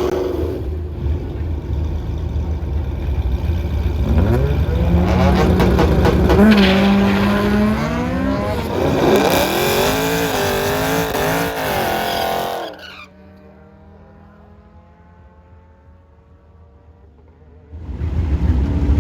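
Supercharged 5.7 Hemi V8 running hard on a drag pass: a steady rumble, then the engine pitch climbs in several steps through the gears. About thirteen seconds in the sound drops sharply to a much quieter stretch, and the engine is loud again near the end.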